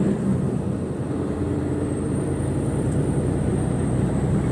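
Articulated lorry's diesel engine running steadily, with its drone and road noise heard from inside the cab.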